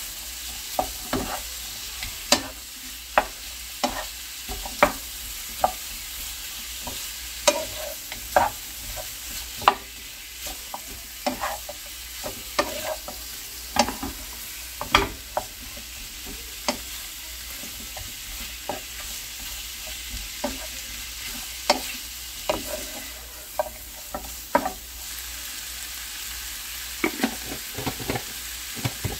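Bigfin reef squid strips stir-frying in a nonstick frying pan over high heat: a steady sizzle under irregular sharp knocks and scrapes of a wooden spatula against the pan as the food is tossed.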